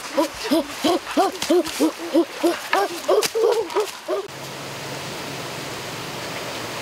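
A rapid run of short hooting calls from a boy's voice, each rising and falling in pitch, about three a second. After about four seconds it cuts off suddenly to a steady rushing noise.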